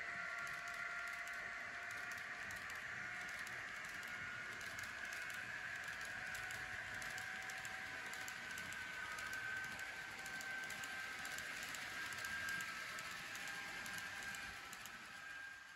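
N-scale model hopper wagons rolling along the track, their metal wheels making fast, irregular clicking over the rail joints, over a steady electric whine from the model locomotive with its DCC sound decoder. The sound drops away near the end.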